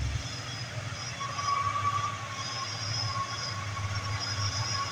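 Heavy diesel engines of Mitsubishi Fuso tanker trucks labouring up a hill in a steady low rumble, with a thin whine joining about a second in. Heavy rain hisses steadily underneath.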